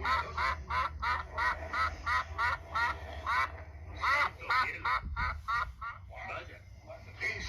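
A duck quacking in rapid series, about three to four quacks a second, in two long runs with a brief pause between them, fading to softer calls near the end.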